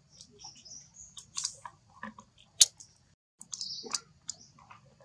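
A macaque chewing on sweet lotus: scattered wet clicks and short crunches, with one sharp click about two and a half seconds in. High bird chirps come and go behind it.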